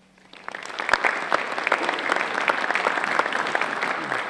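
Audience applauding: clapping starts about half a second in and quickly builds to a steady round of applause.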